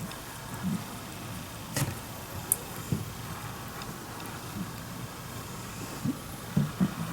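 A domestic cat snoring in its sleep: short, irregular low sounds over a steady low rumble, with one sharp click about two seconds in.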